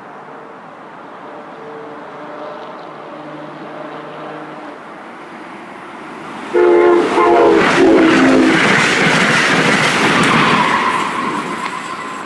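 Amtrak Keystone train's horn sounding faintly in the distance, then two loud, close blasts about six and a half seconds in, followed by the rush and rail clatter of the train passing at speed, fading near the end.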